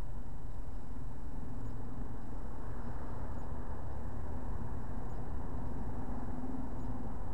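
Car engine idling with a steady low rumble, heard from inside the stationary car.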